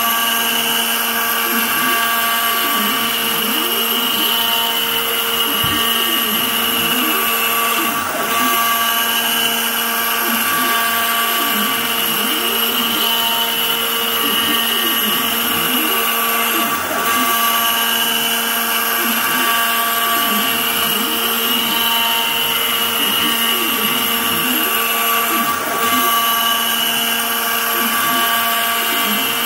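Inventables CNC router's spindle running a steady high whine as its end mill cuts a bottle-opener outline into wood. Faint tones slide up and down beneath it as the machine moves, and the whine dips briefly about every eight or nine seconds.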